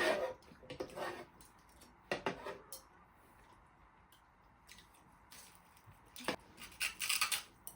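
Eating sounds: scattered short bursts of chewing and mouth noises, several in the first three seconds, then a quiet stretch, then a cluster again near the end.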